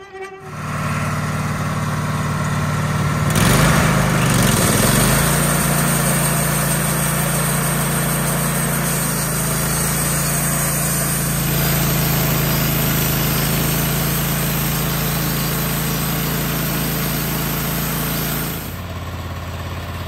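Wood-Mizer LT15 portable bandsaw mill's gas engine running under throttle with the band blade turning as it cuts a pine log. The sound swells and shifts in pitch a few seconds in, holds steady through the cut, then drops suddenly near the end.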